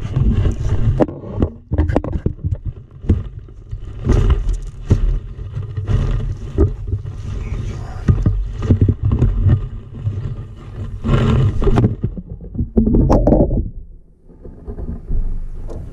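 Repeated knocks, bumps and scrapes of handling on a small fishing boat, over a steady low rumble. The noise drops off briefly about fourteen seconds in.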